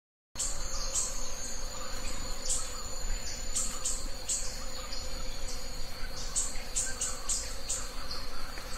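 Insects chirping: short high chirps repeating irregularly over a steady high drone, beginning a moment in after a brief silence.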